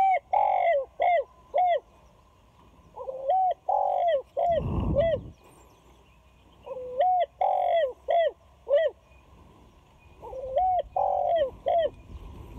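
Spotted dove (tekukur) cooing: four repeated phrases, each a drawn-out coo followed by a few short coos. A brief low rumble comes about halfway through, between the second and third phrases.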